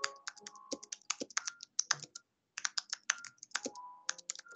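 Typing on a computer keyboard: a quick, irregular run of keystrokes with a brief pause about two seconds in.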